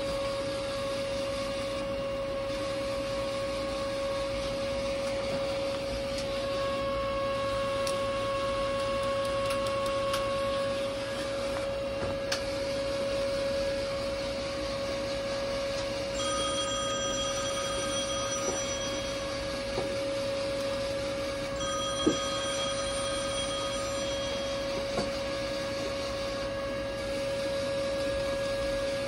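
Steady electrical whine from a powered-up avionics bench test setup with a weather radar indicator, with a few faint clicks. Twice in the second half, a ringing tone sounds for a couple of seconds each time, about three seconds apart.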